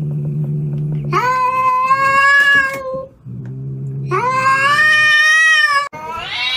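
Orange tabby cat growling low and giving two long, drawn-out yowls, the first about a second in and the second about four seconds in, with growling between them. It is a hostile warning cry at another cat that it is facing.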